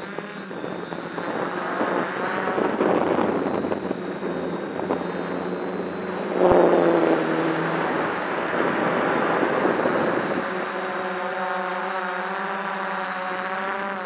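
DJI F550 hexacopter's six electric motors and propellers, heard from the onboard camera as the craft takes off and climbs. The motor hum is partly buried under a rushing noise that grows in the first couple of seconds and peaks with a sharp tick about six and a half seconds in. In the last few seconds the motors' several tones come through clearly again.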